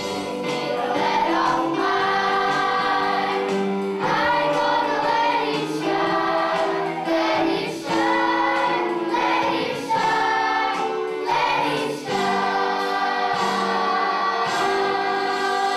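Children's choir singing a song together in long held notes, phrase after phrase.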